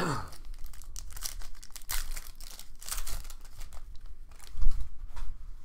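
Foil wrapper of a Panini Contenders trading card pack crinkling and tearing as it is opened, with cards rustling in the hands. A soft low thump comes about four and a half seconds in.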